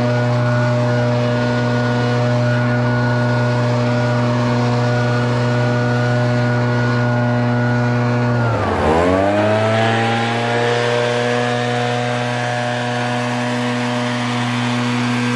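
Small two-stroke engine of handheld gas lawn equipment running at high throttle. About eight and a half seconds in, the revs dip sharply as the throttle is let off, then climb back and hold steady.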